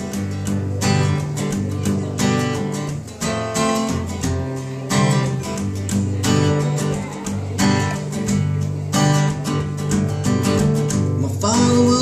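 Cutaway acoustic guitar strummed in a steady rhythm of chords: the instrumental intro of the song, before the vocals come in.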